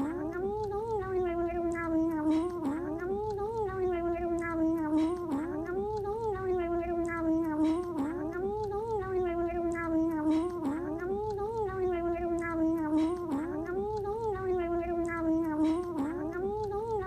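A cat making a continuous humming, moaning 'yummy' noise while it eats. The pitch dips and swoops back up about once a second, and faint small clicks sound over it.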